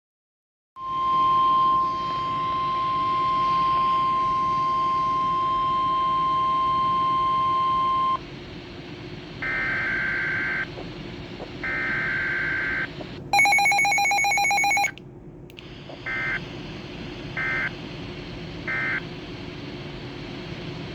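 Weather radio alert tones: a steady warning alarm tone of about 1 kHz held for about seven seconds. Two roughly one-second bursts of warbling SAME digital data tones follow, then a louder buzzy tone for about a second and a half, then three short data bursts near the end, the end-of-message signal.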